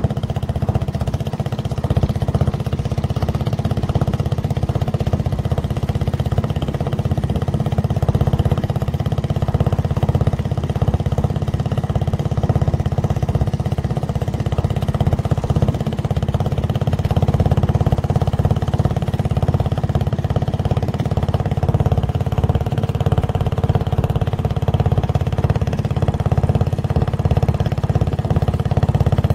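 Motorboat engine running steadily, a low even drone that holds the same pitch and level.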